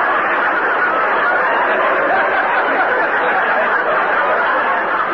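Studio audience laughing at a joke, a sustained wave of crowd laughter, on a narrow-band 1951 radio transcription recording.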